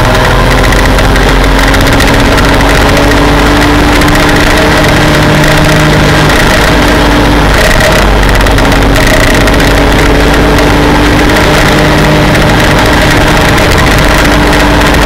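Super mini race truck's engine at speed, heard from inside the cab: very loud and steady, rising slowly in pitch, with a brief break in the note about halfway through as the truck goes through a turn.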